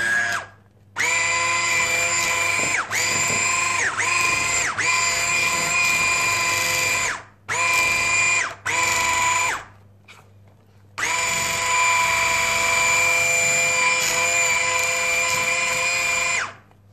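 Electric hand mixer beating thick choux pastry dough with its whisks: a steady motor whine that cuts out twice for a moment and sags briefly in pitch a few times as it slows, then stops near the end.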